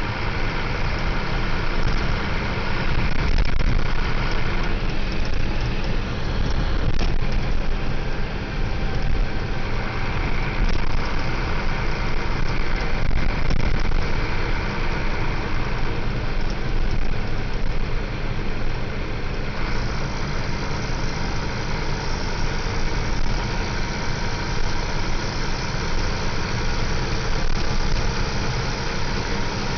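Diesel engine of a Busscar Urbanuss Pluss LE city bus on a Scania L94UB chassis running steadily, with a deep low drone. About two-thirds of the way through, a higher hiss grows louder.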